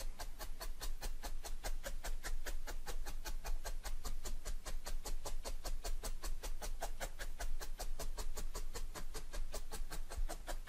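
Felting needle stabbing repeatedly through wool into a foam mat, a fast steady run of crisp pokes at about six a second, attaching a wisp of wool fibre.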